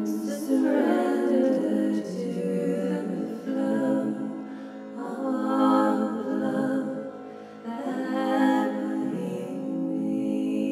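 A woman singing wordless, sustained healing tones in three long phrases over a steady ringing drone.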